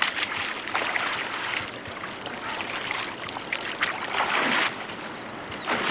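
Creek water splashing as a man who has been ducked under is hauled up out of it, in irregular surges with the loudest splash about four seconds in and a short one near the end. Faint bird chirps in the latter half.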